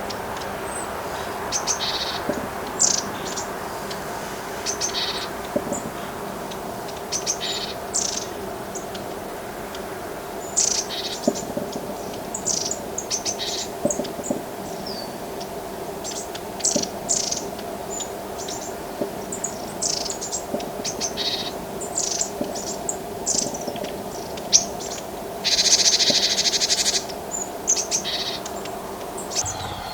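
Japanese tit calling again and again in short high notes, with a longer harsh buzzy call near the end, over a steady low background hum.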